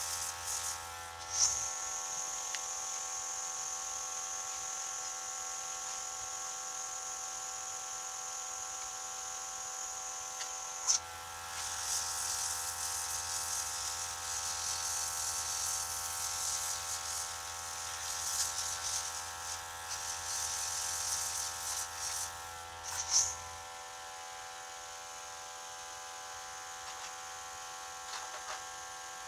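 Airbrush compressor humming steadily while the airbrush sprays, a hiss of air and paint. The hiss comes on a second or two in, turns uneven about a third of the way through and cuts off about two-thirds through, leaving only the compressor's hum.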